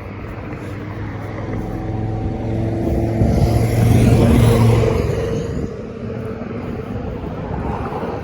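A motor vehicle driving past, its engine hum growing louder to a peak about four seconds in, then fading away.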